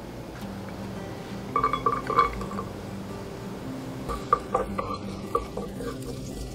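Garlic slices dropped into a nonstick frying pan with a thin film of oil, a short patter of taps about one and a half seconds in. From about four seconds in, a wooden spatula knocks and scrapes as it stirs them around the pan. Soft background music plays underneath.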